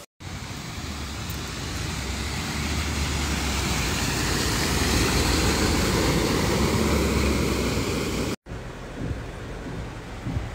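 An ambulance truck driving through deep floodwater: its engine runs under a rushing wash of spraying water that swells as it approaches and is loudest as it passes. After a sudden cut near the end, the quieter low rumble of a car driving, heard from inside the car.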